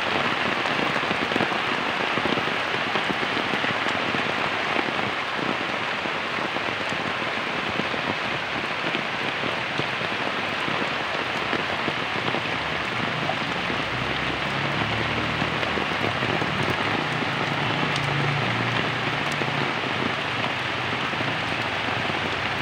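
Heavy rain pouring steadily onto wet ground and puddles. A low rumble rises under the rain for several seconds past the middle.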